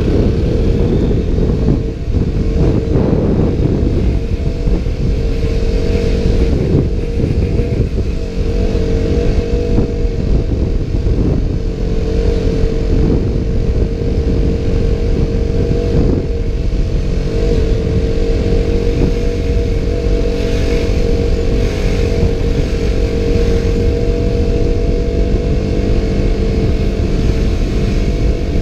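KTM Duke motorcycle engine running at a steady, nearly unchanging pitch while riding, easing off slightly near the end. Heavy wind noise buffets the GoPro's microphone, which is muffled by its waterproof case.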